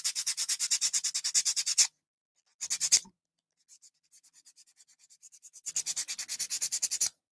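Sandpaper rubbed by hand over a thin plastic mouth plate in quick back-and-forth strokes, about eight a second, roughing up the surface so glue will stick. The sanding pauses about two seconds in, gives a short burst near three seconds, then starts again softly and grows to full strokes before stopping just before the end.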